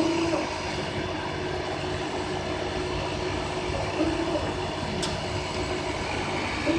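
A PTP CNC router running in a workshop, giving a steady mechanical noise with a few constant tones. Brief chirps come near the start, about four seconds in and at the end, and there is a sharp click about five seconds in.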